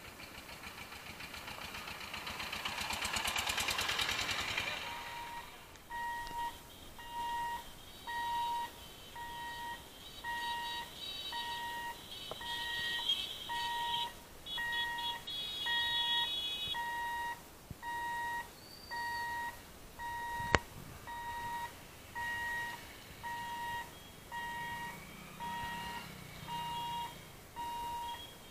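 A small engine swells up and fades away as a motorised three-wheeler van passes close by in the first five seconds. Then the level-crossing gate's electronic warning beeper sounds an even two-tone beep about once a second as the boom barriers close, with one sharp click about two-thirds of the way in.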